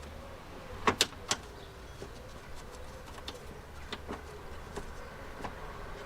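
Sharp metallic clicks and knocks from hand work on a car's rear door lock and latch mechanism: three close together about a second in, then lighter scattered clicks. A pigeon coos faintly in the background.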